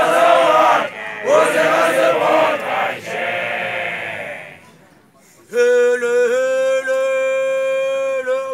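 A group of voices chanting together in several short phrases, then after a brief pause a single long note held steadily for about three seconds before it breaks off.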